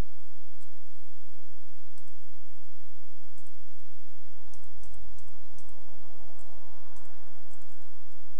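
Computer keyboard keystrokes: scattered light clicks at an uneven pace as a string of digits is typed, over a steady hiss and low hum.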